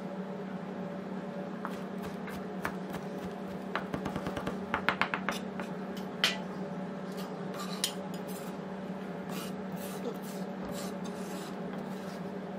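Chef's knife chopping leafy green herbs on a plastic cutting board: scattered taps, with a quick run of rapid chops about five seconds in, over a steady background hum.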